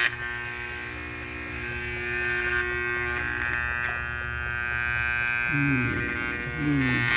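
Vintage Hamilton Beach electric hand mixer's motor running with a steady electric buzz, its tone shifting about halfway through. The beaters are stuck and won't spin.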